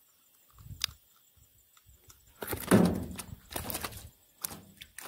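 Paddling a small boat: irregular knocks and swishes of the paddle, roughly one a second from about halfway, with a single soft thump and click just under a second in.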